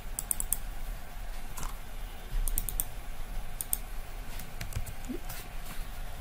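Computer keyboard and mouse clicking in short quick runs of three or four clicks, over a steady low hum.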